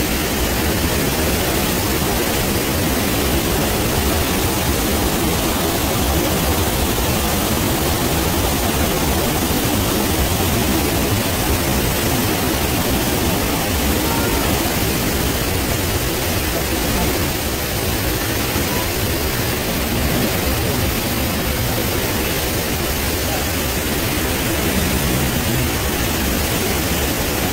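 Steady roar of the Rhine Falls' rushing whitewater, an even noise that holds without let-up.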